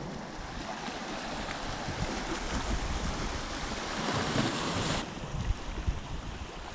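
Wind buffeting the microphone over small waves washing against a rocky shore. A hiss builds around four seconds in and cuts off suddenly about five seconds in.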